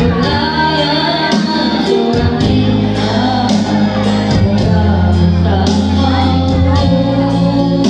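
Loud music with a singing voice over a steady beat and bass.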